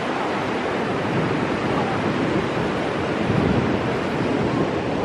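Ocean surf washing on the shore and wind blowing across the microphone: a steady rushing noise with low buffeting surges.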